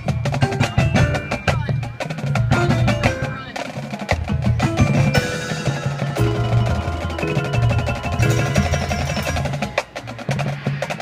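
High school marching band percussion playing: the drumline's snare and bass drums striking fast patterns, with marimbas and other mallet instruments ringing out pitched notes.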